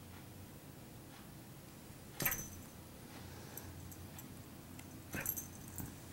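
Metal tag on a cat's collar clinking in two short jingles, about two seconds in and again about five seconds in.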